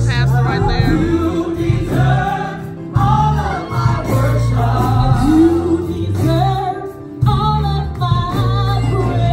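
Gospel music: a song sung by several voices over a steady bass line, playing for a praise dance. The level drops briefly about three seconds in and again about seven seconds in.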